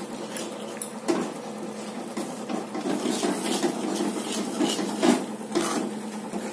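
A spoon scraping and clinking against a kadai while rice flour is stirred into boiling water into a thick dough, with irregular knocks, sharpest about a second in and about five seconds in.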